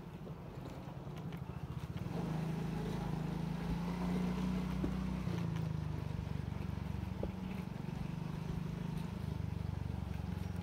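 Low, steady rumble of a motorcycle being ridden, its engine mixed with wind buffeting the microphone. It gets louder about two seconds in and shifts again a few seconds later.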